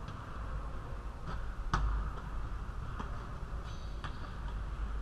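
A basketball knocking against hard surfaces in an echoing gym: three sharp hits, the loudest a little under two seconds in, over a steady low hum of the hall. A brief faint sneaker squeak comes near four seconds.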